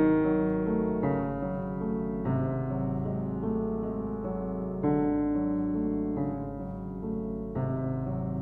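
Background music: slow piano, sustained chords with a new one struck every second or two.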